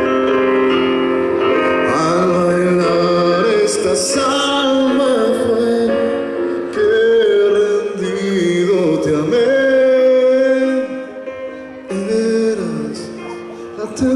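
A man singing an Argentine folk song to his own digital piano accompaniment. Held piano chords come first; the voice enters about two seconds in with long, gliding sung notes.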